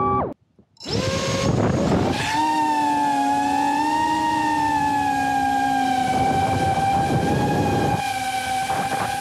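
Tiny Hawk 2 Freestyle FPV drone's small brushless motors and propellers, heard close from the onboard camera. The whine cuts out for about half a second, spins back up in a rising whine, then holds a steady high-pitched whine in flight.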